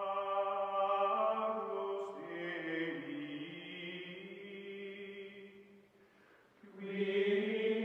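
Outro music: voices singing a slow chant in long held chords, fading out about six seconds in and swelling back a second later.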